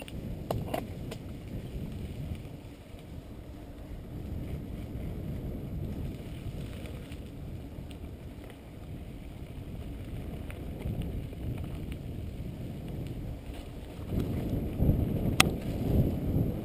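Wind rushing over a GoPro's microphone and the rumble of mountain bike tyres on a sandy dirt trail, with a few sharp knocks from bumps. It grows louder near the end.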